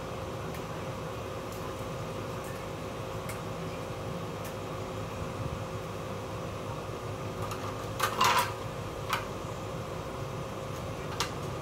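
Ricoh photocopier's cooling fan running with a steady hum. A short clatter comes about eight seconds in, with a couple of single clicks after it as parts inside the machine are handled.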